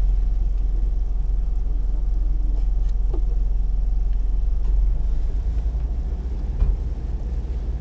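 4x4 vehicle's engine running low and steady as it crawls over a rough track, a deep rumble with a sharp knock about two-thirds of the way through.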